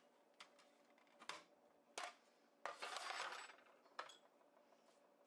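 Faint plastic clicks and clatter of an Oster food processor's lid being unlatched, lifted off the bowl and set down, with a short scraping rattle about three seconds in. The motor is off.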